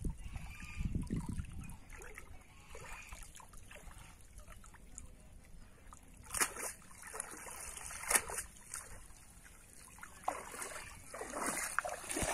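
Water splashing and trickling as a wet cast net is gathered up out of shallow water and water runs off its mesh, with a few sharper splashes in the second half. A low rumble is heard in the first second or two.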